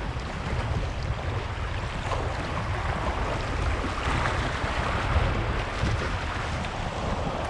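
Sea waves washing against the shore, swelling a little about halfway through, under a steady rumble of wind buffeting the microphone.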